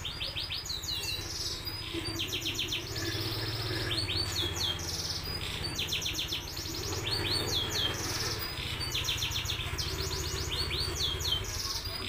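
Domestic canary singing in long phrases of rapid, tightly spaced rolling trills and quick downward-sweeping notes, over a low steady hum.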